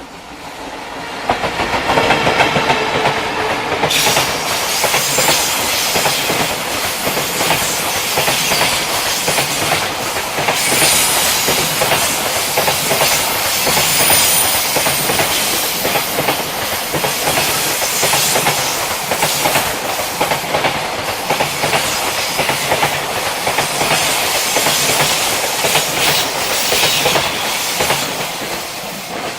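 Freight train with an electric locomotive passing close by at speed: a sudden start about a second in, then a long string of freight wagons rattling past in a steady clickety-clack that tapers off near the end.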